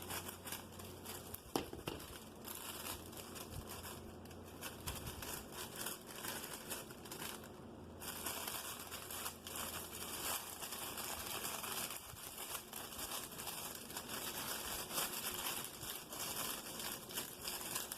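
Thin plastic heat-shrink remote sleeve crinkling and rustling as it is handled, trimmed and folded, with many small irregular crackles.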